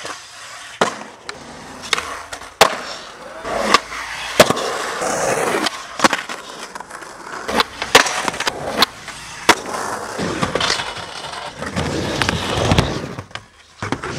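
Skateboards rolling on concrete and ramps, with a dozen or so sharp clacks of the board popping and landing at uneven intervals.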